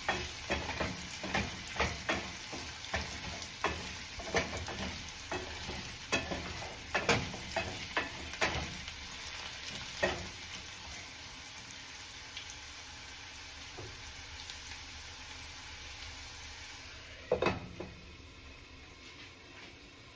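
Potatoes frying in oil in a pan, sizzling, while a utensil stirs and scrapes them in quick, repeated strokes. The strokes stop about halfway and the sizzle goes on alone. Near the end a sharp knock comes, and then the sizzle fades much quieter.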